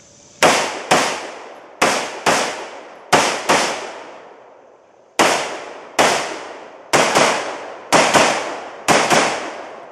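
About a dozen gunshots, mostly in quick pairs with short pauses between the pairs, each a sharp crack with a trailing echo. The last shots come from a Heckler & Koch MR556 semi-automatic rifle.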